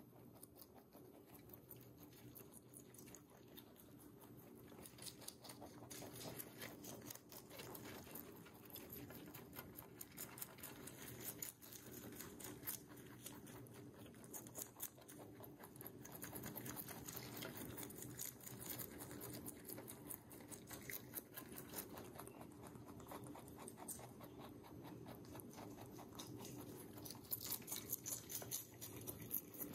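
Two lop-eared rabbits chewing fresh salad leaves: a fast, steady run of small crunching chomps that grows somewhat louder in the second half.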